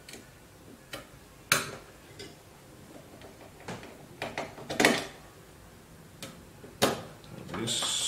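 Scattered clicks and knocks of hands working on a desktop PC's sheet-metal case as the power supply is fastened in and handled, with a short rustling hiss near the end.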